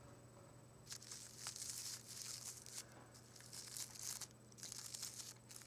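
Fingers rustling and crinkling through a bouquet of fresh flowers: soft, crackly rustles of petals and stems in several bursts with short pauses, starting about a second in.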